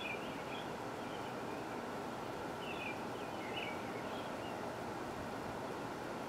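Outdoor ambience: a steady background noise with a few short, high chirping calls scattered through it, at the start and again a few seconds in.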